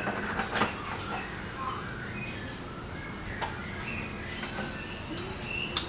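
Small birds chirping on and off in short, high calls, with a few brief clicks.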